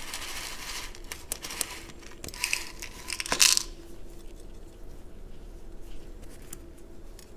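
Small decorative gravel poured from a plastic scoop into a plant pot, the little stones trickling and clicking against each other. The pour is loudest between about two and a half and three and a half seconds in, followed by scattered light clicks of single pebbles.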